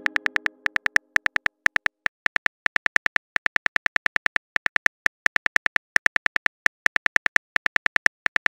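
Simulated phone-keyboard typing clicks: quick, even taps about seven a second, in runs broken by short pauses. The tail of a pitched message chime fades out in the first half second.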